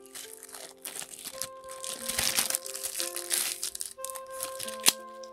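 Thin clear plastic bag crinkling as a recorder's pistol-grip handle is worked out of it, with one sharp click near the end. Soft background music with held notes plays underneath.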